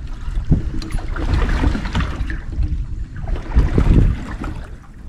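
Wind buffeting the microphone in uneven gusts over water sloshing and trickling around a small fishing boat.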